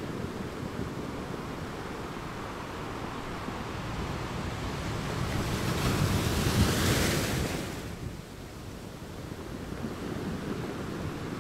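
Wind buffeting the microphone with a low, uneven rumble. A stronger gust swells up into a hiss about five seconds in and dies away about eight seconds in.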